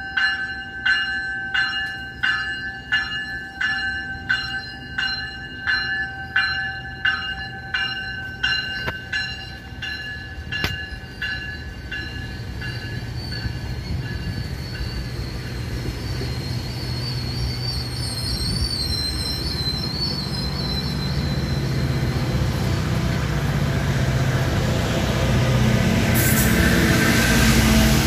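A railway crossing bell rings in even strokes, a little under twice a second, and fades out about twelve seconds in. Meanwhile a train approaches, its rumble and wheel noise growing steadily louder toward the end, with a wavering high wheel squeal partway through.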